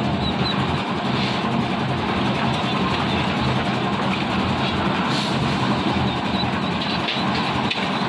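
Concrete mixer machine's engine running steadily, with a few faint clinks of metal pans mixed in.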